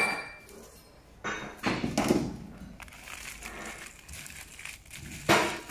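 Freshly die-cut cardboard jigsaw pieces rustling and clicking as hands stir them on the puzzle die, after a large paper sheet is lifted off it. The sound comes in short bursts, the loudest a sharp scrape about five seconds in.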